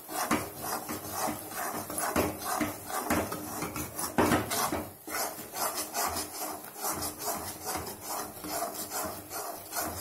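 Wooden spatula scraping and slapping a thick gram-flour (besan) and oil paste around a metal kadai in quick, even, rhythmic strokes. This is the continuous stirring stage of making Mysore pak, kept up until the besan stops absorbing oil.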